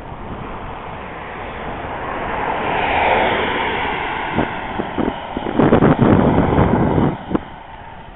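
Wind buffeting the camera's microphone in gusts. A rush swells and fades about three seconds in, and heavy buffeting comes around six to seven seconds in.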